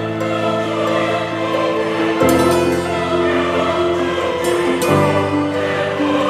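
Background music with sustained choral or orchestral chords, changing about every two and a half seconds.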